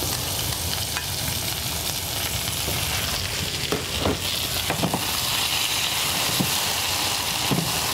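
Sliced mushrooms and onions sizzling in a hot frying pan with freshly added dark sauce: a steady hiss, broken by a few light clicks and scrapes as a slotted spatula stirs the pan.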